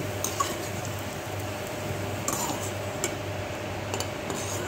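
Metal slotted spoon scraping and clinking against an aluminium kadhai as roasted soya chunks are scooped out of the oil: a few sharp clinks over a steady low hum.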